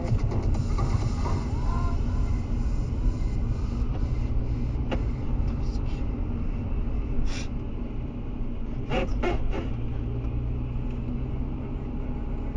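A car driving at steady speed, its engine and road rumble running low and even, with a few brief clicks about halfway through and again near the end.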